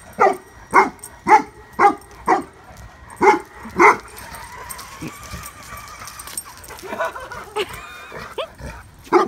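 Newfoundland dog barking at a radio-controlled car: a quick run of deep, loud barks about twice a second, a pause of a few seconds, then more barks near the end.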